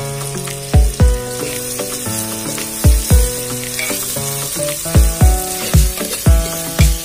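Sliced onions sizzling in hot oil in an aluminium pressure cooker as they are stirred. A steady hiss runs under background music, whose regular deep drum beat is the loudest sound.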